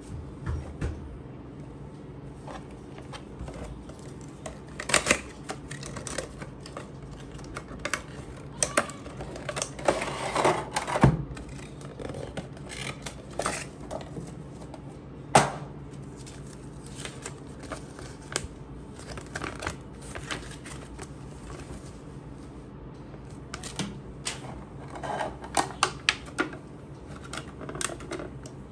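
Packaging being handled: a cardboard box and its insert and a clear plastic blister tray are turned over and pulled apart, giving scattered taps, clicks and crinkles, with a few sharper clicks, over a low steady hum.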